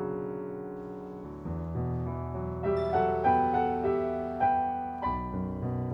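Background piano music: slow notes and chords, each struck and left to ring and fade.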